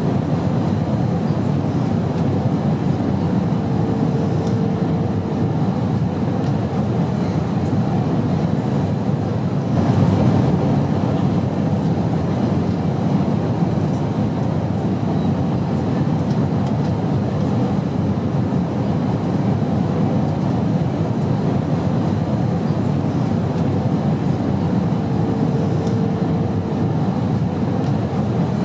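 Steady airplane engine drone, an even low rumble with no breaks, with a faint held tone rising above it twice.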